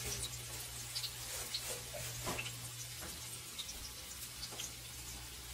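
Onion and garlic sizzling gently in olive oil in a stainless steel wok, with scattered small pops and crackles over a steady low hum.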